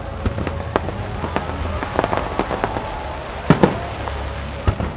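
Aerial firework shells bursting: a string of sharp bangs, the loudest two close together about three and a half seconds in.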